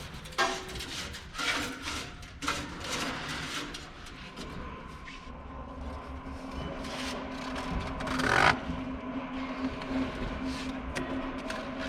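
Baling wire being threaded through the slots of a cardboard baler and pulled tight, with knocks and metal scraping, a loud scrape about eight seconds in. A steady machine hum runs underneath from about five seconds in.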